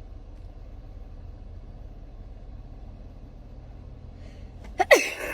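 A person sneezing once near the end, a sudden loud burst set off by a nasal swab, over a steady low hum.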